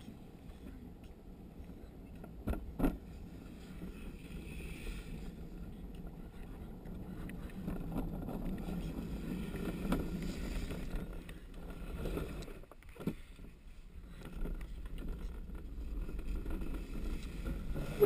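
Luge cart rolling down a concrete track: a steady rumble of the wheels on the concrete, with a few sharp knocks about two and a half seconds in and again near thirteen seconds.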